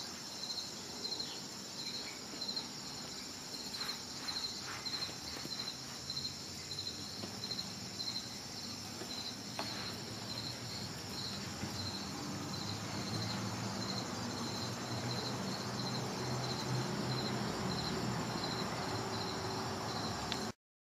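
Crickets chirping: a steady run of short, high, evenly repeated chirps over a continuous high insect hiss. A low noise grows louder in the last few seconds, and everything cuts off suddenly just before the end.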